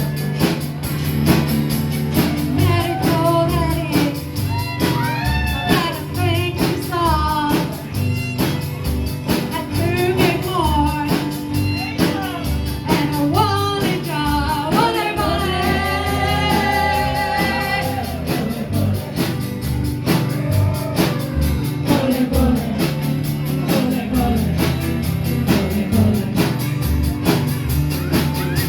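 Band playing rock and roll: a voice singing over guitar, bass and a steady drum beat.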